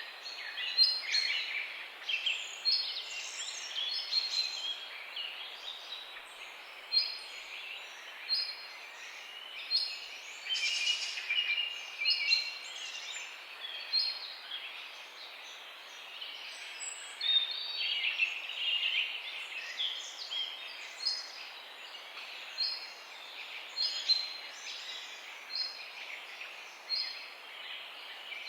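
Several birds chirping and singing in a morning chorus. A short high note repeats about once a second, with bursts of busier twittering now and then, over a faint steady outdoor hiss.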